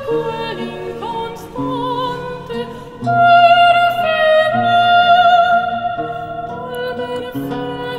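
Film score music: a high singing voice holding long notes with vibrato over a low accompaniment, swelling louder about three seconds in.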